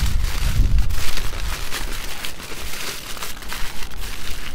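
Aluminium kitchen foil crinkling and rustling in irregular crackles as hands fold and press it around a food parcel.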